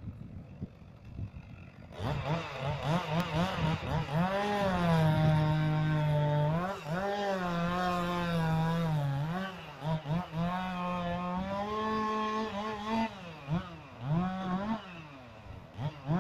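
Chainsaw engine starting to run hard about two seconds in, its pitch repeatedly rising and falling as it is revved, with steadier stretches between.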